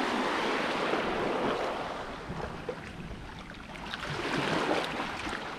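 Small waves washing against a rocky beach, with a second swell of surf about four seconds in, and some wind on the microphone.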